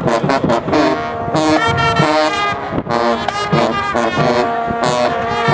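College marching band playing with the brass section out front, in loud short punchy phrases mixed with held notes.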